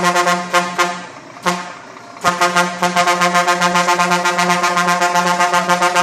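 Custom truck horn on a Scania sounding one steady note in rapid pulses, about five a second. It breaks off about a second in, gives one short blast, and starts up again just after two seconds.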